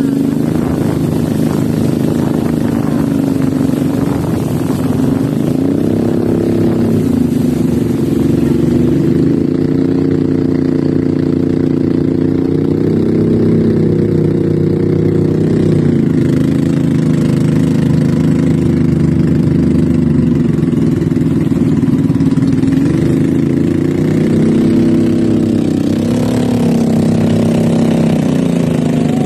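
A small boat's engine running steadily, its pitch rising and falling several times as the revs change.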